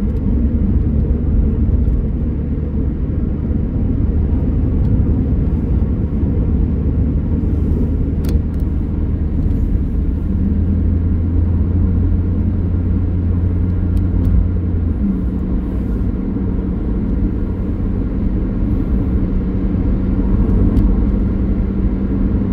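A car driving on a highway, heard from inside the cabin: a steady low rumble of engine and tyres. Its low hum gives way to a higher note about two-thirds of the way through.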